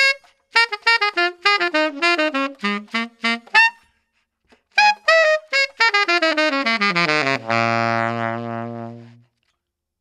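Tenor saxophone playing a quick run of short notes that steps downward, with a brief pause about four seconds in, then a second falling phrase that ends on a long low note held for nearly two seconds and fading out. Recorded close on a ribbon microphone.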